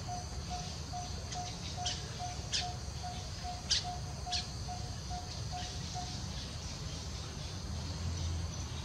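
Outdoor birdsong: a bird repeating a single short note about two or three times a second, which stops about six seconds in, and a few sharp falling chirps around the middle, over a steady high insect-like hiss.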